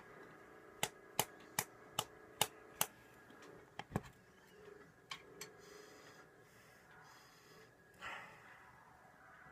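A Skoal tin of dipping tobacco being packed: about six sharp taps on the tin, roughly two and a half a second, then a few scattered clicks and a short rustle as the lid is worked off.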